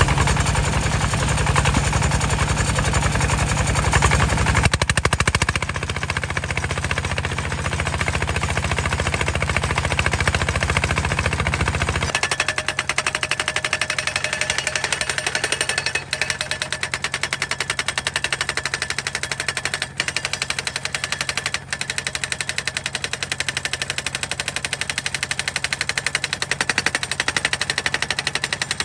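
Homemade hydraulic post-driving hammer pounding a steel fence post with rapid repeated blows, powered by a D15 single-cylinder diesel engine running underneath. About twelve seconds in, the deep rumble underneath drops away while the hammering carries on.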